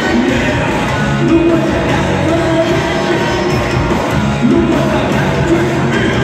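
Live glam-metal band playing with a lead vocal over electric guitars, bass and drums, steady and loud, heard from the audience in a large hall.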